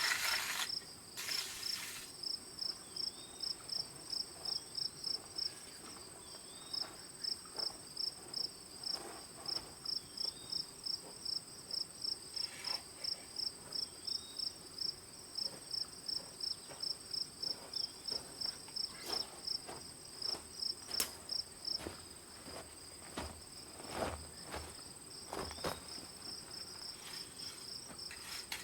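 Crickets chirping steadily in a fast, even pulse a few times a second, over a thin high steady insect whine, with a few scattered knocks in the second half.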